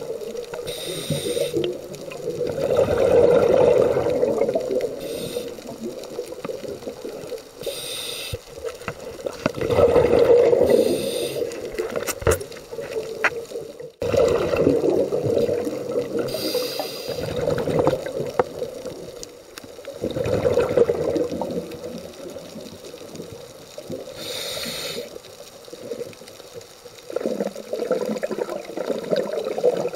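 Scuba diver breathing through a regulator underwater: four slow breaths, each a short hiss on the inhale followed by a bubbling rumble of exhaled air.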